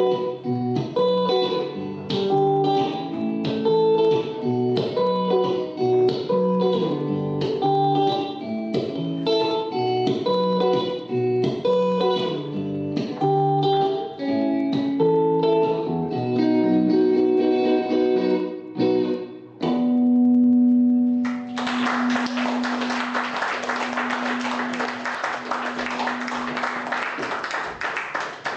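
Guitar playing a picked instrumental passage with no singing. About two-thirds of the way in, a low final note rings out, and the audience applauds for the last several seconds.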